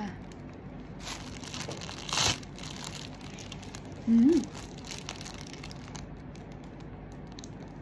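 Thin clear plastic bag crinkling and rustling as it is handled, the loudest crinkles about one and two seconds in, with fainter crackles later. A brief vocal sound about four seconds in.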